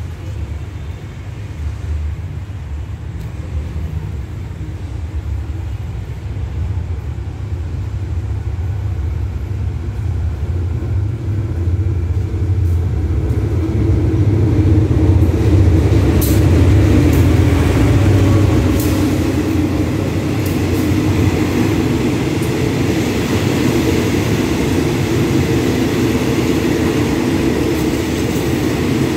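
Diesel locomotive of an express train pulling into a station. Its low engine rumble grows louder until it passes about halfway through. Then the carriages roll by with the running noise of wheels on rails and a few sharp clicks as the train slows to stop.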